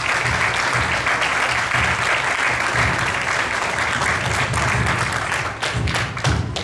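Audience applauding, a steady spell of clapping that thins out near the end.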